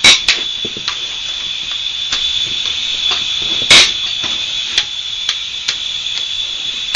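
Bolts on a Chevy 327 V8 being cracked loose with a wrench: sharp snaps and clicks, the loudest about four seconds in, over a steady high-pitched whine.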